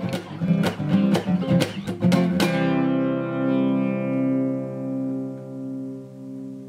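Guitar music: quick plucked or strummed notes, then about two and a half seconds in a final chord rings out, pulsing in level as it slowly fades.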